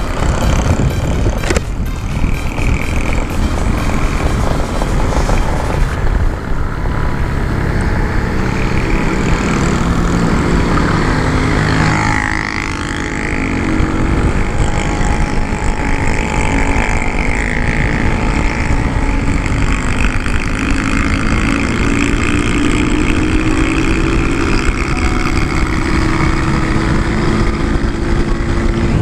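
Sanya S50 110cc scooter engine running under way, its note rising and falling with the throttle, under heavy wind rumble on the camera microphone.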